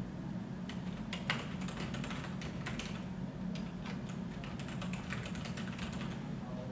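Typing on a computer keyboard: quick, irregular keystrokes as a paragraph of text is entered, over a steady low hum.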